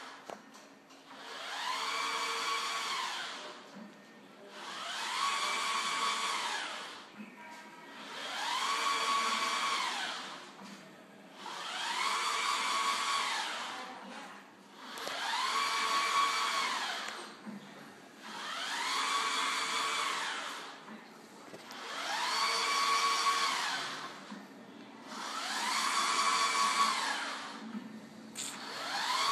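Vertical wall printer's print-head carriage sweeping across the wall as it prints. Each pass is a motor whine that rises in pitch, holds and falls again, with a short lull between passes, about one pass every three and a half seconds.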